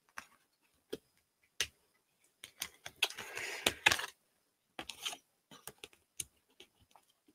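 Tarot cards being handled over a table: a scatter of light clicks and taps as cards are picked up and set down, with a short rustle of cards sliding against one another about three seconds in.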